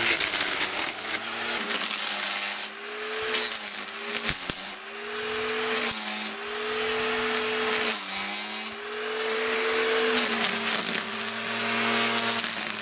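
Corded electric string trimmer running and cutting weeds: a steady motor whine with a hiss of line on stems, its pitch sagging and recovering several times as the line bites into the weeds.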